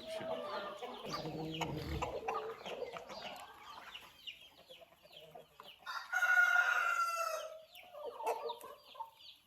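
Chickens clucking and calling in short falling notes, with a rooster crowing once for about a second and a half, about six seconds in.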